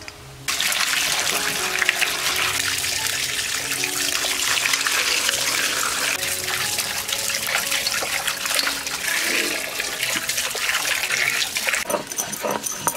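Water running and splashing, starting suddenly about half a second in and easing near the end, as fish are washed clean.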